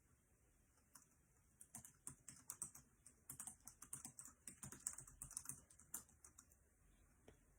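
Faint typing on a computer keyboard: a quick, irregular run of key clicks lasting about five seconds, trailing off with a few last taps.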